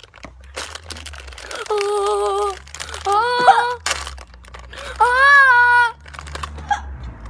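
Plastic sweet packet crinkling and crackling as it is torn open and rummaged in, along with a child's voice holding three long sung notes, the loudest sounds.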